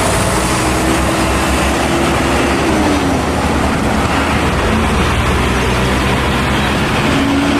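A truck running: a loud, steady rumble and hiss of engine and road noise, with a faint held tone that dips slightly about three seconds in.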